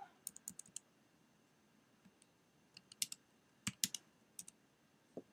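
Keys of an iClever foldable wireless Bluetooth keyboard being typed on. Faint, sharp key clicks come in short runs, with a pause of about two seconds after the first run.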